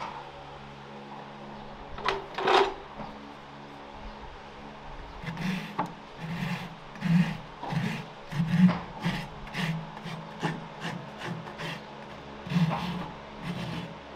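Farrier's rasp filing a horse's hoof: one longer stroke about two seconds in, then repeated scraping strokes about two a second from around five seconds in. A low steady hum runs underneath.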